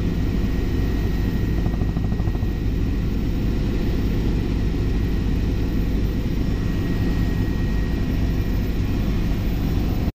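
Helicopter in flight: a steady, loud rotor and engine drone with a thin high whine over it.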